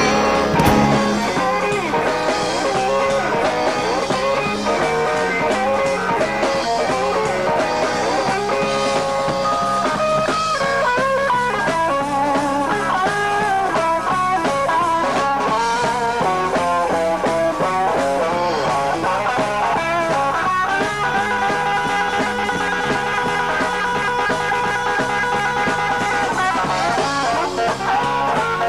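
Band playing an instrumental passage: electric guitar lead lines bending in pitch over a walking bass and drums, with no singing.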